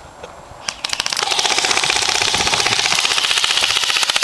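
An M16-style airsoft electric rifle firing full-auto: a rapid, steady train of clicks over a motor whine, starting about a second in and still going at the end.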